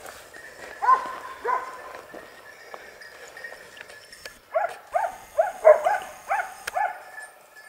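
Hunting dogs barking as they chase a wild boar: two barks about a second in, then a quick run of barks, about two a second, from halfway through.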